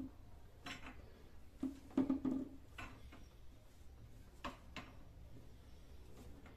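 Scattered metal clicks and clinks of a wrench working the top-mount nut of a front suspension strut, tightening it down over the compressed coil spring; the loudest cluster comes about two seconds in.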